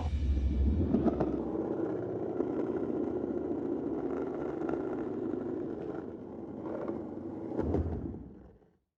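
Skateboard wheels rolling on hard pavement with a steady rumble and a few light clacks, fading out near the end.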